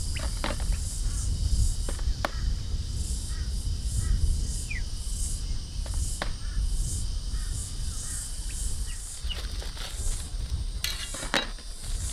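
Insects chirring in a high, even pulse about one and a half times a second over a steady low rumble, with a few light knocks and clicks. Near the end a plastic bag crinkles as it is handled.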